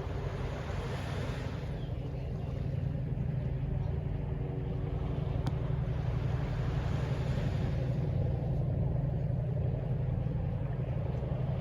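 Distant city traffic: a steady low rumble with a hiss that swells twice, as of vehicles passing, and a single sharp tick about halfway through.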